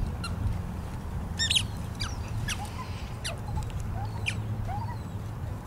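Bird calls: about five quick, high chirps, each sweeping steeply down in pitch, over a steady low rumble.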